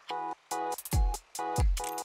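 Electronic background music: short, repeated synth chords, with high ticks and a deep, falling drum beat coming in about halfway.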